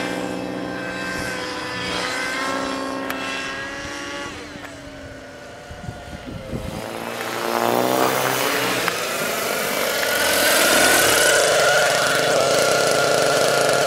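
Align T-Rex 600 Nitro RC helicopter's glow engine and rotor running in flight. Its pitch drops and it grows quieter about four seconds in, then rises again around seven seconds in and holds steady and louder through the rest.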